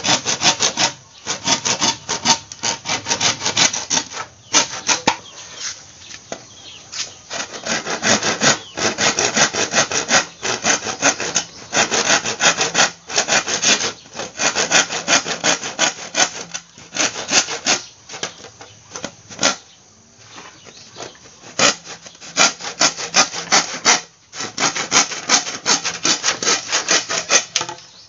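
Hand saw cutting through a green bamboo tube, in fast back-and-forth strokes with a few brief pauses.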